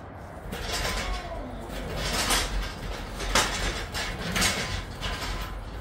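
Hand-pumped hydraulic engine hoist being jacked up under load, about four pumping strokes roughly a second apart with creaks of metal, as it lifts a car engine off its mounts.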